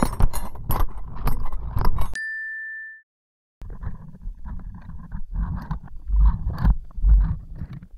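Tools on the cable of a submerged VT500X waterproof lavalier mic, shaken deep underwater and picked up by the mic itself: a dense jangling rattle of clinks over muffled low thumps. About two seconds in there is a brief ringing tone that fades, then a short silent gap, and the rattling comes back with heavier low thuds.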